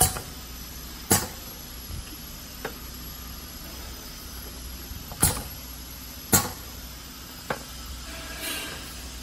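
Semi-automatic pneumatic piston filling machine cycling: two pairs of sharp clacks, the clacks of each pair about a second apart, as its air cylinder drives the piston forward and back. There are lighter clicks in between and a short air hiss near the end, over a steady hum.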